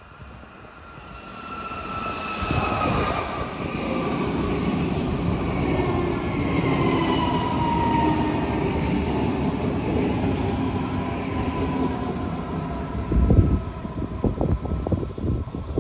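DB class 423 S-Bahn electric train passing close by, its traction motors whining in several tones that fall slowly in pitch over the rumble of the wheels on the rails. A few low thumps come near the end.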